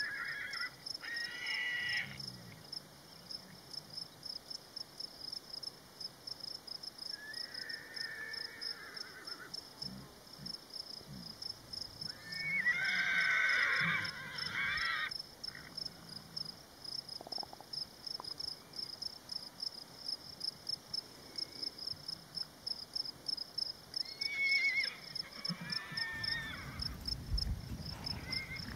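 Outdoor natural ambience: a steady, rapid, high-pitched chirping runs throughout. Over it come a few louder animal calls, the longest and loudest about halfway through, and a low rumble near the end.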